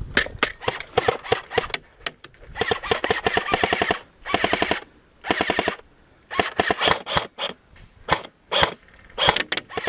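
Airsoft guns firing: single shots and several rapid full-auto bursts, the longest about a second and a half starting about two and a half seconds in.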